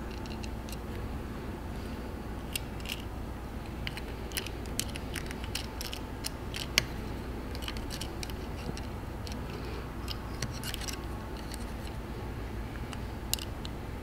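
Small, irregular plastic clicks and scrapes as a wedge lock is pushed into a Deutsch DT connector housing with an install tool. The loudest sharp click comes about seven seconds in, over a steady low hum.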